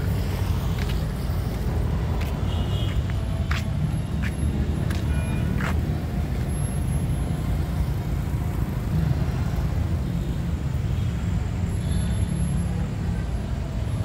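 Steady low rumble of road traffic on a city street, with a few short clicks in the middle.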